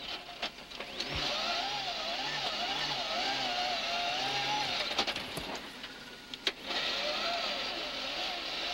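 Mitsubishi Lancer Evolution rally car's turbocharged four-cylinder engine heard from inside the cabin at speed on a gravel stage, its revs rising and falling with gravel and road noise under it. About five seconds in the engine drops back for a moment, with a couple of sharp knocks, then picks up again.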